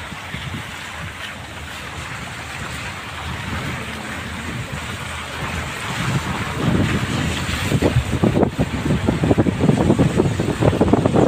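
Wind buffeting the microphone over a steady rushing noise; the gusts grow stronger and choppier from about halfway through.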